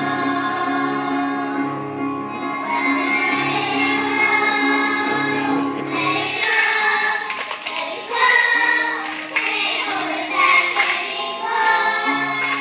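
Young children singing together along with backing music. A steady bass line drops out about halfway through while the singing carries on, and comes back near the end.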